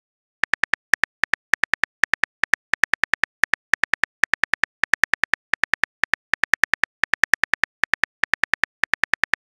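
Texting app's keyboard typing sound effect: a rapid string of short, sharp clicks, about four to six a second, starting about half a second in as a message is typed out.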